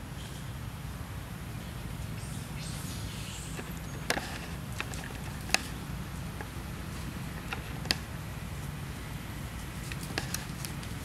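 Scattered sharp cracks and rustles of dry leaves and twigs under macaques walking on the forest floor, a few louder snaps standing out, over a steady low rumble.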